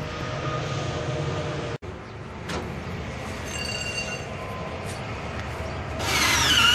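Steady low background rumble with a few faint clicks as a ratchet strap is handled, then about six seconds in a cordless drill driving a strap-winder attachment starts up with a loud high squeal that dips in pitch as it spins.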